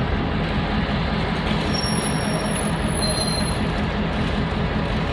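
Diesel locomotive engines running: a steady rumble with a low, even hum beneath it.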